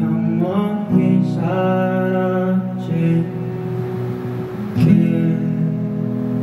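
Acoustic guitar strummed slowly, with a chord struck about every two seconds and left to ring, under a male voice singing the closing line of a slow ballad.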